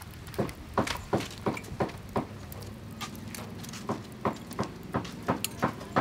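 Sharp pops and crackles, about three a second, from butter melting in a ceramic bowl over a charcoal grill.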